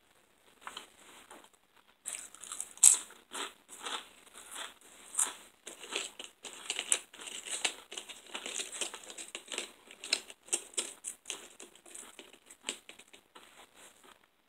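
Snack packaging being handled, crinkling in a dense run of sharp irregular crackles that starts about two seconds in.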